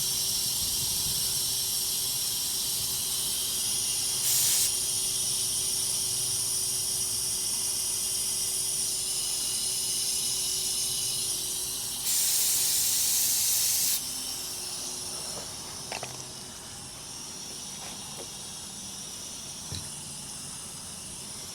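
Compressed air hissing steadily from a truck's air system, with a short louder blast of air about four seconds in and a longer two-second blast about twelve seconds in; the hiss drops a little after that, and there are a few light clicks.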